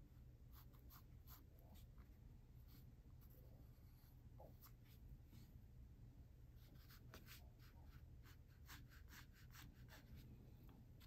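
Faint, quick strokes of a drawing tool on the drawing surface as shadows are sketched in: many short scratches, in clusters, with brief pauses between them.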